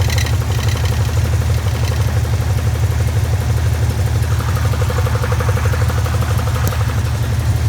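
1981 Pontiac Turbo Trans Am's turbocharged 301 V8 idling, with a rapid, even knocking from underneath. The knock is the loose plastic flywheel cover hitting the flywheel, a noise that sounds like a rod knock.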